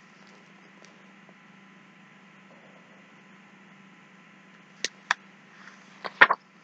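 A faint steady electrical hum, then a few sharp clicks and taps over the last couple of seconds as the picture book is handled and lowered.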